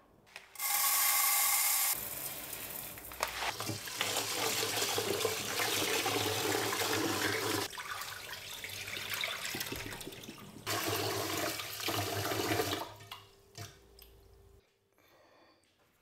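Water from a kitchen tap splashing into a Midea rice cooker's inner pot as rice is rinsed, the cloudy rinse water poured off into the sink. It comes in two long spells of running and splashing with a quieter stretch between, and dies away near the end.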